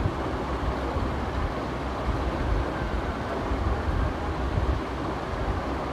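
Steady low rumbling background noise with a faint hiss above it.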